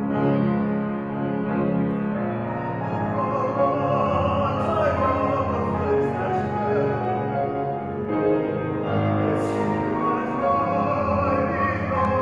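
A male classical singer sings an art song in operatic style, holding long wavering notes, with grand piano accompaniment.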